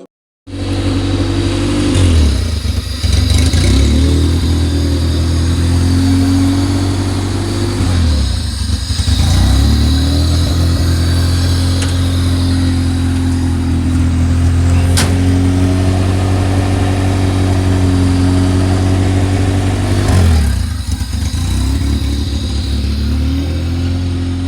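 Honda B20 four-cylinder engine swapped into an EK Civic, running steadily. Its speed sags and recovers three times: a rough, unsteady idle, in an engine the owner is chasing a vacuum leak on.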